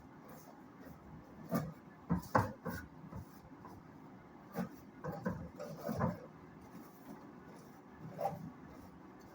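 Handling noise from cleaning work: scattered knocks, clatter and rubbing in short clusters, about a second and a half in, again around five to six seconds, and once near the end.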